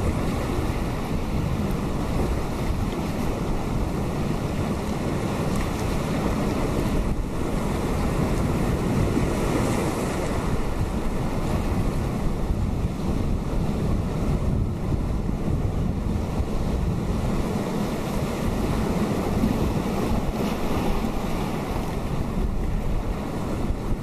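Atlantic surf breaking on a rocky shore: a steady rush of waves and washing water with no breaks.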